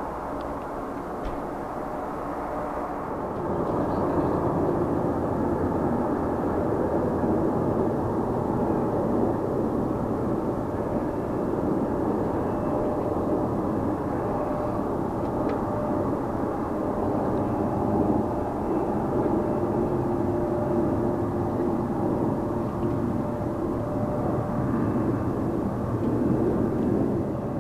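Jet airliner engine noise. A quieter steady engine sound plays for the first few seconds, then from about three seconds in comes a louder, steady jet sound with a faint hum in it, from a J-Air Embraer 170's twin turbofans as it rolls along the runway.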